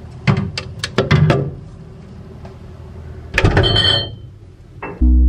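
A quick run of sharp knocks and clatters, then a short scraping rattle with a brief high ringing about three and a half seconds in. Music with a heavy bass starts near the end.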